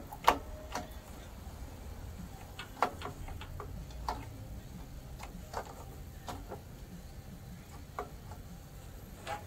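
Irregular sharp clicks and taps of plastic printer gears and parts being handled and pushed onto their shafts against the printer's sheet-metal side frame, over a steady low hum.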